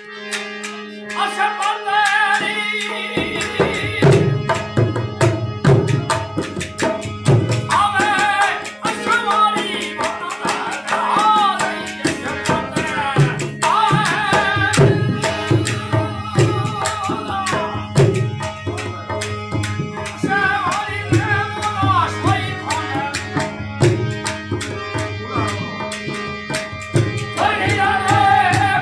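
Rajasthani folk song: a man singing over a steady harmonium drone, with a dholak drum coming in about three seconds in and keeping up a running beat.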